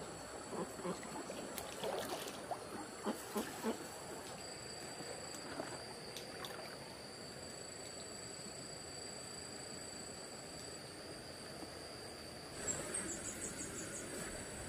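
Outdoor ambience with a steady high-pitched insect drone in two tones. There are scattered small knocks in the first few seconds, and a short rapid chirp near the end.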